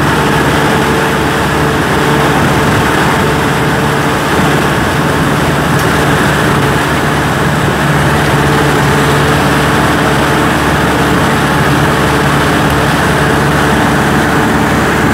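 Kubota M6040 SU tractor's four-cylinder diesel engine running steadily as the tractor drives, heard loud and close from on board.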